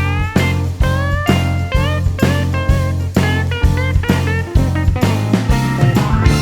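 Background music: electric guitar with bending, sliding notes over a bass line and a steady drum beat, in a blues-rock style.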